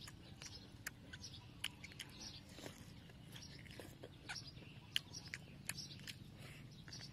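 Close-up eating sounds: chewing and crunching of crispy fried pork ribs and fresh vegetables, with irregular sharp clicks and crackles from the mouth.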